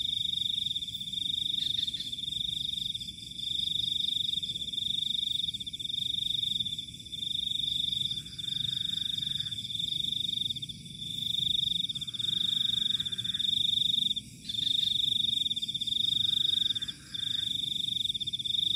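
Night chorus of frogs and insects in a rice paddy: a loud, high trill that runs in phrases of a second or two with short breaks, with lower calls joining in four short spells.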